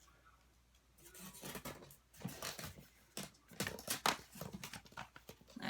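Product packaging being handled and rummaged through: irregular rustling, crinkling and small clicks that start about a second in.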